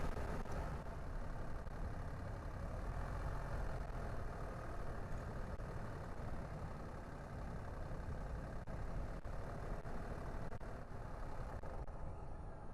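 Car on the move: steady engine and tyre noise.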